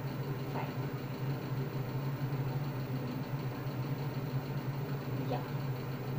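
A steady low machine hum, like a motor or appliance running, holding one even pitch throughout.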